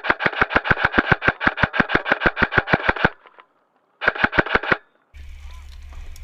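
Krytac Trident Mk2 airsoft electric rifle firing full auto at about ten shots a second: a long burst of about three seconds, then a short burst about a second later. Near the end a steady low hum takes over.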